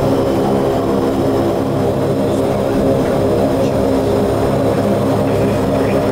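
Saab 340's twin General Electric CT7 turboprop engines running at low ground power, heard inside the cockpit: a steady drone with a stack of propeller tones.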